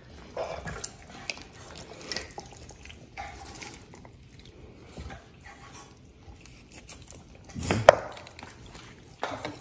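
Raw whole chicken being deboned by hand: soft, scattered sounds of fingers working the meat and skin away from the ribcage, with one short louder sound about eight seconds in.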